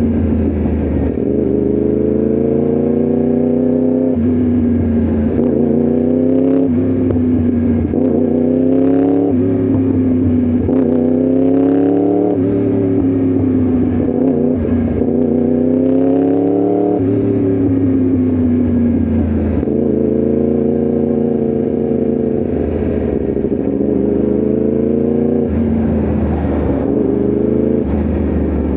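Yamaha R1M's crossplane inline-four engine accelerating through the gears, its pitch climbing and dropping back at each upshift several times in a row. About two-thirds of the way in it eases off with the pitch falling, then pulls through the gears again.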